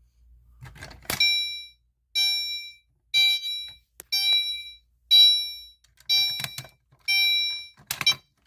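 Electronic fire alarm horn sounding in even pulses about once a second, from about a second in until shortly before the end. A sharp click falls in the middle, and a brief rattle comes as it stops.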